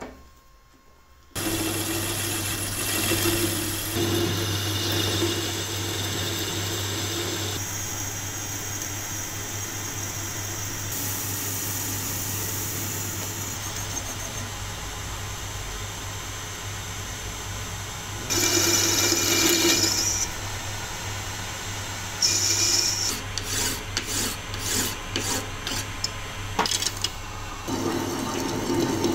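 Metal lathe running and cutting a metal bar, coming in about a second in: a steady motor hum under the scraping hiss of a twist drill boring into the bar and a cutting tool turning it. The scraping grows louder and rougher twice in the second half.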